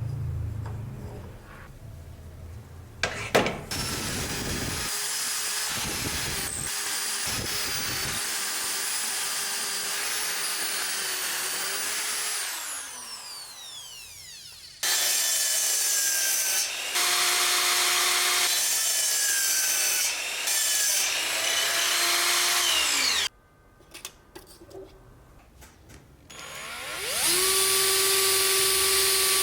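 Electric power tool motor running and grinding or sanding against the workpiece, with a sharp knock about three seconds in. It switches off and winds down twice, the second time into a short lull, then spins back up to a steady whine near the end.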